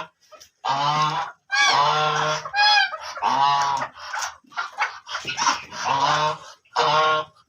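Black ducks quacking: a run of loud, pitched quacks, about nine of them, one after another with short gaps.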